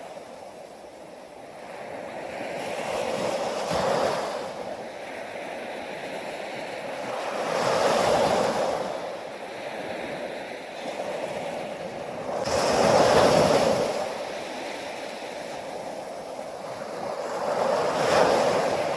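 Ocean waves washing in on a shore, four surges rising and falling about every four to five seconds, the strongest about two-thirds of the way through.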